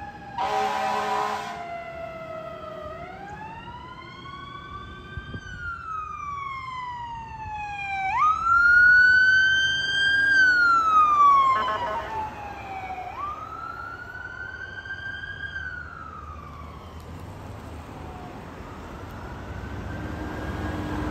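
A short air-horn blast from an emergency vehicle, then electronic sirens wailing in slow sweeps that rise and fall over several seconds each. The sirens are loudest from about eight to eleven seconds in, as the fire/rescue SUV goes by. Near the end the sirens fade, leaving low road traffic noise.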